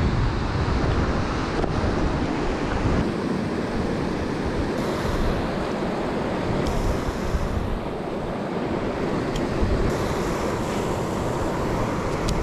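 River water rushing over rocky rapids, a steady noisy rush, with wind buffeting the microphone.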